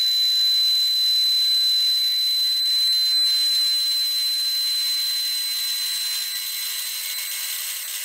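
Axminster HBS250N bandsaw running and cutting a curved shape in a small piece of wood: a steady high-pitched whine over a hiss, cutting off suddenly at the end.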